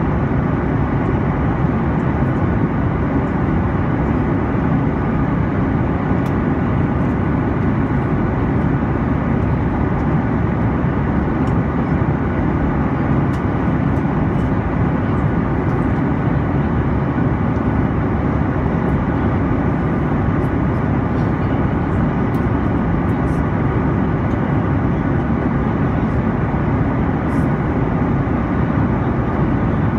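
Steady cabin noise of an airliner in cruise: a constant low rumble and hiss from the engines and the air rushing past the fuselage, heard from inside the cabin.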